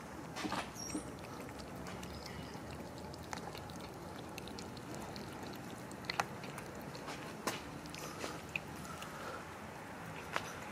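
Several cats eating from a plastic tub of food: chewing, with scattered sharp clicks and crunches.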